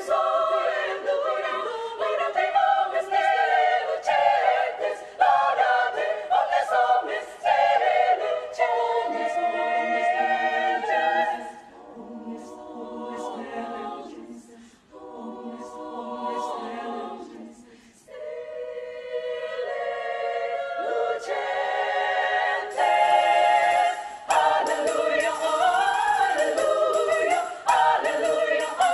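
Women's choir singing unaccompanied. Partway through they drop to a soft, lower passage with brief near-pauses, then swell back to full voice.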